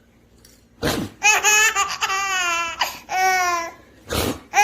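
Baby laughing in high-pitched squeals, after a short noisy burst of sound about a second in; another such burst comes near the end.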